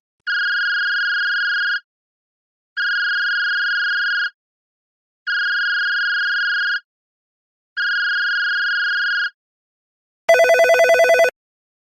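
Electronic telephone ringer sounding four identical long, steady high-pitched beeps, evenly spaced. Near the end a different, rapidly warbling phone ring sounds once, briefly.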